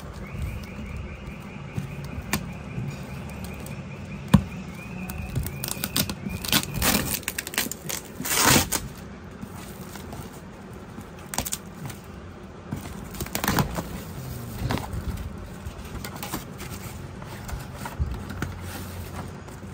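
Scissors cutting through packing tape on a cardboard parcel, with tape tearing and the cardboard box being pulled open. Sharp clicks run throughout, with louder bursts of tearing about six to nine seconds in and again around thirteen seconds.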